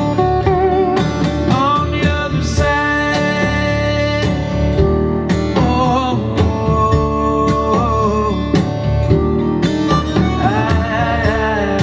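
Recorded song with guitar and drums, played back through a hi-fi amplifier. This passage is mostly instrumental.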